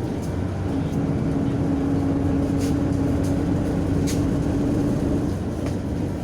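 Inside a MAZ-105.065 bus on the move: steady engine and road rumble with a held whine through most of it that stops near the end, and a few short rattles.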